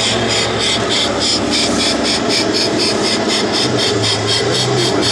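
1/16 scale RC tank's engine sound running steadily, with a regular clatter about three to four times a second.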